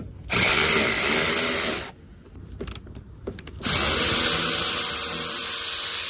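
DeWalt cordless electric ratchet running in reverse on a long socket extension, backing out the motorcycle's seat bolts: two steady motor whirs, the second longer, with a few light clicks between.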